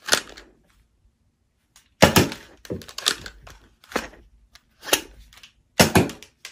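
Spring-powered Nerf foam-dart blaster being fired and re-primed: a string of sharp clacks, about one a second.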